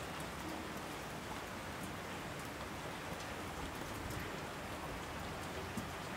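Steady rain falling, an even hiss with scattered sharp drips now and then.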